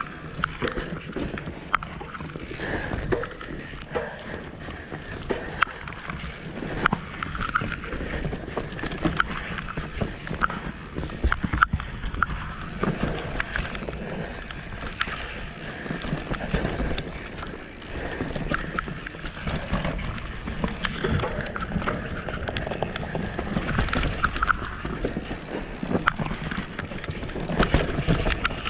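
Mountain bike riding fast down a dirt forest trail. The tyres rumble over the ground, and the bike rattles and knocks sharply and often over roots and bumps.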